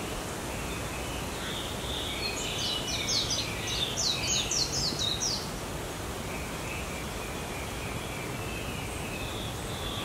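A bird singing one phrase of quick, high, down-slurred notes, about four a second, lasting about three seconds near the middle, with a few fainter chirps before and after. Under it runs a steady outdoor hiss.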